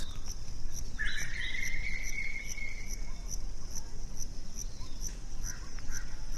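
Cricket chirping steadily, short high chirps about twice a second, with a single drawn-out tone lasting about two seconds starting about a second in.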